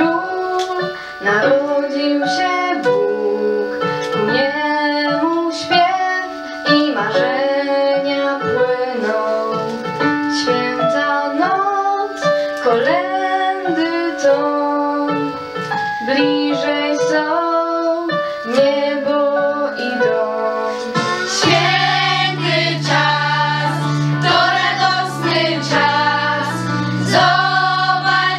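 A girl sings a Christmas song solo into a microphone over a held instrumental accompaniment. About three-quarters of the way in, the accompaniment fills out with low notes, and by the end several girls' voices are singing together.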